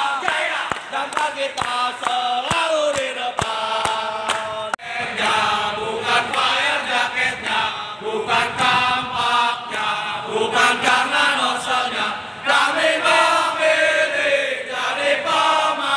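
A group of men chanting a rousing yell in unison, half sung, with sharp hand claps keeping time about once a second over the first few seconds.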